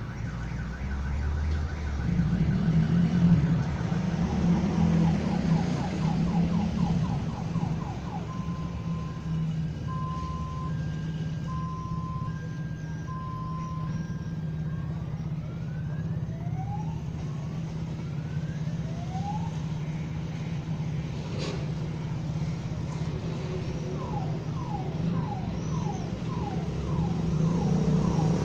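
A car alarm sounding and cycling through its tone patterns: fast repeated chirps, then two tones alternating about once a second, then rising whoops, then fast chirps again. A steady hum of street traffic runs underneath, and a passing vehicle grows louder near the end.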